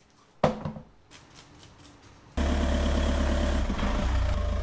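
A single thump about half a second in as a car tyre is set down on a rubber mat, then, from about two and a half seconds in, a Volkswagen car's engine idling steadily close by, cutting in abruptly.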